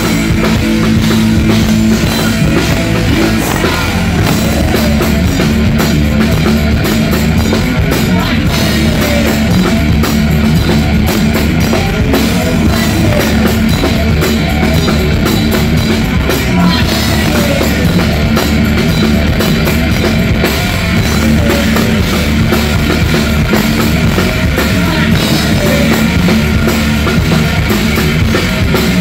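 Rock band playing live: electric guitar, bass guitar and drum kit, loud and unbroken.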